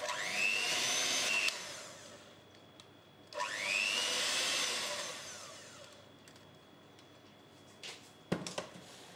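Electric hand mixer beating cake batter in a stainless steel bowl. The motor whines up to speed, runs about a second and a half and winds down, then starts again about three seconds in, runs about two seconds and winds down. A few sharp knocks near the end.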